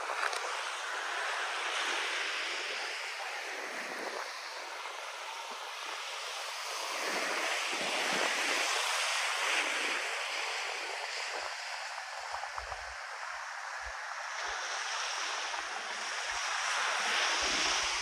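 Surf washing up on a sandy beach, rising and falling in three slow swells, with wind bumping the microphone in the second half.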